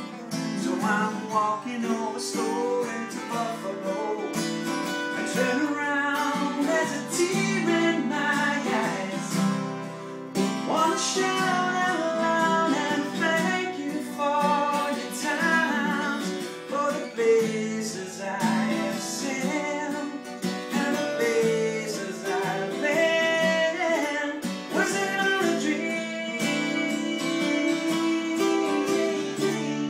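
Two acoustic guitars, one of them a Taylor, playing an instrumental break: strummed chords under a quickly changing picked melody line.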